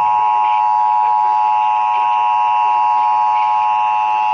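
Emergency Alert System attention signal: the steady two-tone alarm (853 Hz and 960 Hz together) that precedes an EAS message, here sounding for a Required Monthly Test over broadcast radio.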